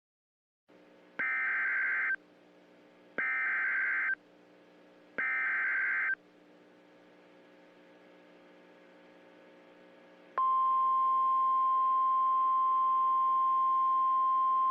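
US Emergency Alert System broadcast on NOAA Weather Radio: three bursts of the SAME digital header, a screechy modem-like warble about a second long each and a second apart, over a faint hum. About ten seconds in, the steady single-pitch 1050 Hz weather radio attention tone starts and holds. Together they announce a National Weather Service severe thunderstorm warning.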